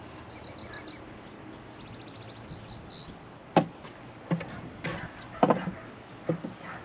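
Several sharp knocks and clunks in the second half as beehive frames are set into a swarm trap box. Before them, a bird chirps faintly in short repeated notes.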